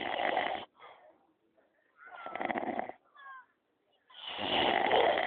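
A man snoring: three long snores about two seconds apart, each followed by a short, quieter breath.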